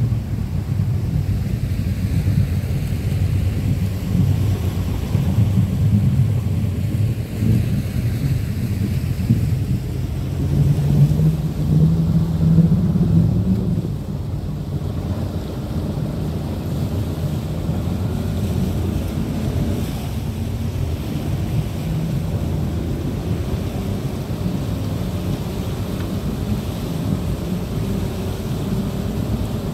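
River boat's outboard motor running steadily at speed, with wind buffeting the microphone and water rushing past the hull. The wind rumble is heavier in the first half, then eases and the engine's hum comes through more evenly.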